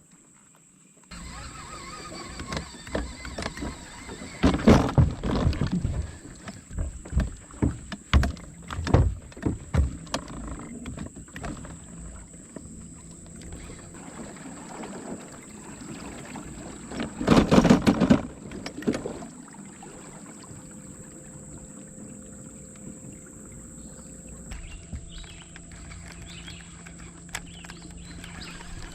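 Knocks and clatter in a jon boat on moving water, in three loud bunches, over a steady background with a faint high whine.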